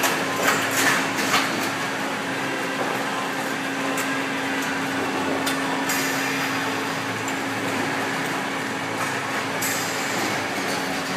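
Packing-line machinery running with a steady hum as a bin tipper tilts a harvest container, with a few clattering knocks in the first second and a half and occasional light clicks after.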